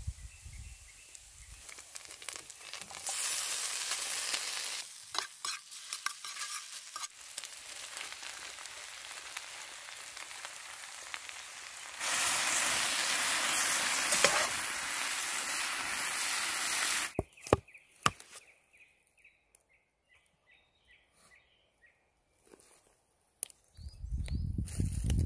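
Food sizzling and frying in a black steel pan over a campfire, stirred with a spatula; the sizzle swells about three seconds in and is loudest for several seconds past the middle, then stops abruptly, leaving a few faint clicks.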